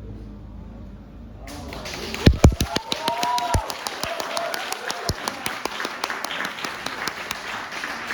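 The band's last chord dies away, then audience applause breaks out about a second and a half in, with cheering voices near the start of it.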